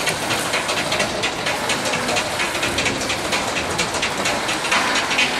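Many ice skates scraping across the ice together, a steady crackling hiss as a synchronized skating team glides in formation.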